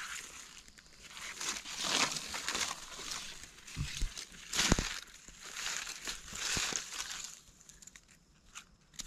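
Dry fallen leaves crunching and rustling in irregular bursts as someone moves through forest leaf litter, with a couple of dull thumps about four seconds in.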